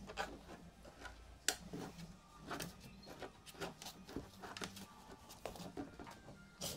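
Scattered light taps, scrapes and knocks as puppies scramble and play among cardboard boxes and toys, irregular and close together, with a sharper knock about a second and a half in and another near the end.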